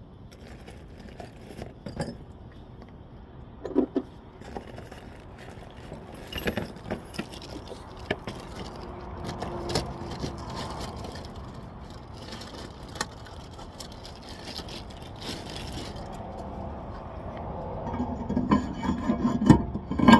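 Metal tools and parts clinking, tapping and scraping during hand work on a car's rear wheel hub and brakes, in scattered short sounds that grow busier and louder near the end.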